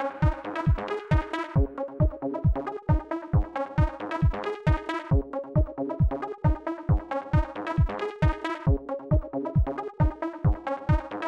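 Background electronic dance music: a steady kick drum a little over two beats a second under synthesizer chords.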